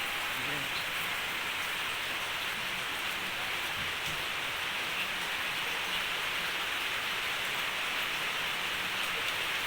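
A steady, even hiss like rain falling, unchanging throughout, with no knocks or pounding strokes.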